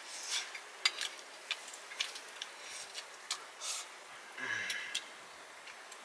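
Metal spoon clinking and scraping against a metal bowl during eating, in light, irregular taps about every half second.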